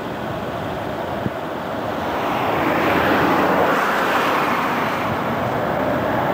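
Jet noise from a four-engine Boeing 747 climbing out under power after a touch-and-go. The steady jet noise grows louder from about two seconds in as the airliner comes toward and overhead.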